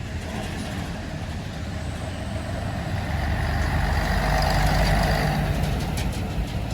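UD Quester truck's diesel engine working under load on an uphill climb, growing louder about three seconds in, peaking a couple of seconds later, then easing off.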